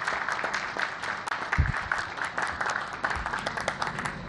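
Crowd applauding: many hands clapping in a dense patter, with a brief low thump about one and a half seconds in.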